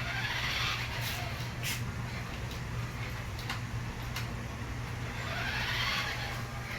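Electric motor and gears of a 1:16 4WD toy RC car whirring as the throttle is worked: the whine drops in pitch in the first second and rises again near the end, with a few light clicks.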